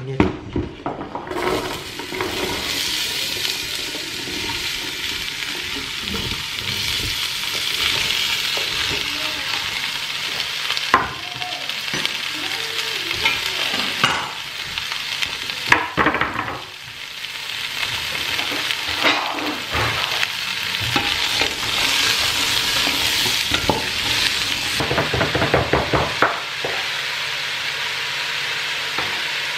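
Chopped carrot, celery, onion and potato frying in oil in a stainless steel pot, a steady sizzle, with scattered knocks and scrapes from stirring and, near the end, quick knife chopping on a board.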